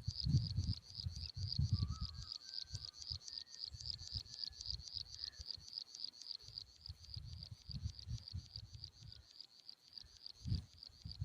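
An insect chirping in a fast, even, high-pitched pulse, with low gusts of wind buffeting the microphone and a few faint bird notes.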